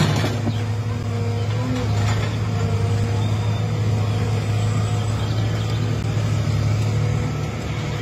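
Excavator's diesel engine running steadily under load as its bucket digs into and lifts a clump of tree roots and soil, with a knock right at the start.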